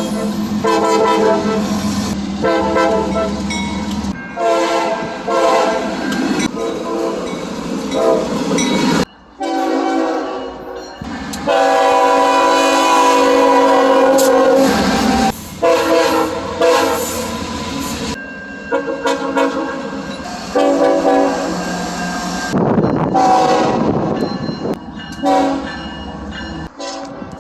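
Train horns sounding loud, steady multi-note chords, several blasts from different trains spliced one after another, each breaking off abruptly where the next clip begins.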